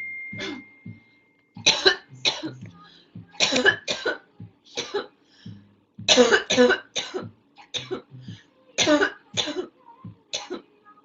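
A girl coughing repeatedly, about a dozen short, sharp coughs coming in fits of two or three.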